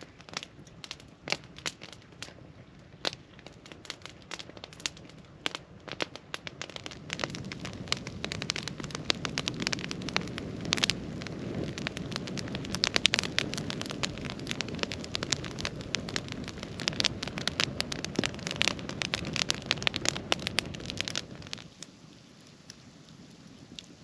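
Wood campfire crackling, with frequent sharp pops from the burning logs. A steadier rushing noise builds up under the pops about seven seconds in and falls away a few seconds before the end.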